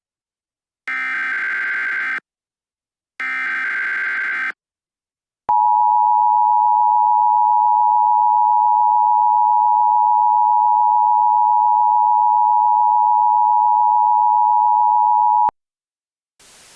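The last two of an Emergency Alert System SAME header's three buzzy data bursts, each about a second long, then the steady two-tone EAS attention signal (853 and 960 Hz) held for about ten seconds. The tone cuts off, and a hiss of static starts near the end.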